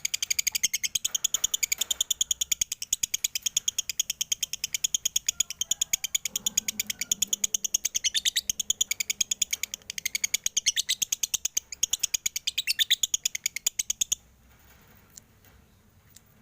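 Male lovebird chattering in one long unbroken run of rapid high chirps, which breaks off abruptly about fourteen seconds in.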